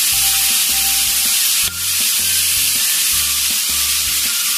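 Boiled macaroni sizzling as it is stir-fried in hot oil and butter over a high flame, with a spatula stirring it round the pan. Background music with a low, steady bass line plays underneath.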